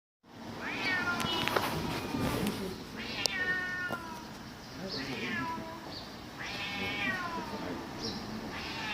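Cats yowling at each other in a fight standoff: a series of long, drawn-out caterwauls, each sliding down in pitch, about four in a row with short gaps between.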